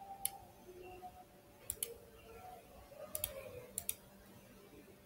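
Computer mouse button clicks: a handful of sharp, short clicks, mostly in quick pairs like a press and release, scattered through the few seconds.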